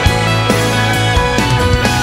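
Music: a song with guitar and drums.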